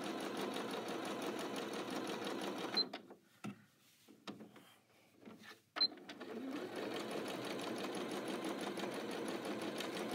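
Janome Skyline 6 sewing machine stitching steadily with its darning foot, the feed dogs lowered for darning. About three seconds in it stops with a short electronic beep. A few soft clicks follow, then another beep about six seconds in, and it starts stitching again.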